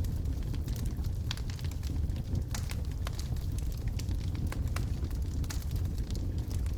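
Wood logs burning in a fireplace: a steady low rumble of the fire with frequent sharp crackles and pops scattered irregularly throughout.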